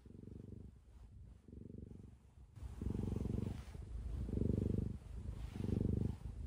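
Domestic cat purring, a low rumble pulsing with each breath at about one pulse a second; the purr grows louder about two and a half seconds in.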